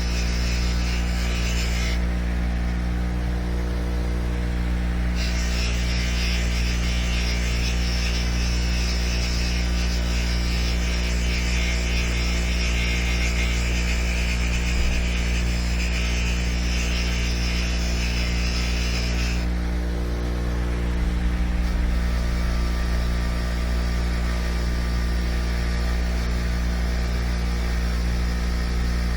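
Electric motor of a power wire wheel running steadily, with a harsh scraping hiss while rust is brushed off brake caliper parts. The scraping stops briefly twice, at about two seconds in and again near twenty seconds in, while the motor keeps running.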